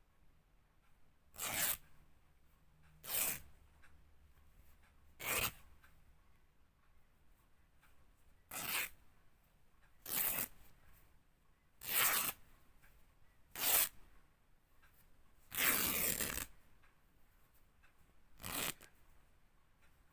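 Fabric being ripped in nine separate short tears, a second or two apart; the eighth tear is longer, lasting about a second.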